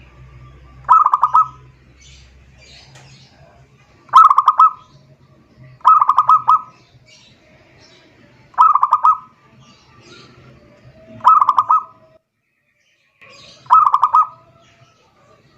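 Zebra dove (perkutut) cooing: six short phrases of rapid staccato notes, one every two to three seconds. Fainter high chirps sound between the phrases.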